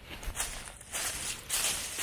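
Footsteps crunching through dry leaf litter: a few steps, each a short crackling rustle.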